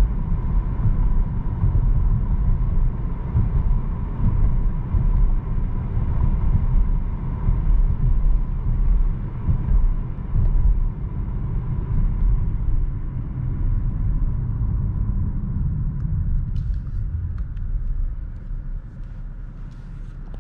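Dodge Charger GT with its 3.6-litre V6 being driven: a steady low engine and road rumble with a thin steady whine, easing off a little near the end, when a few short clicks come through.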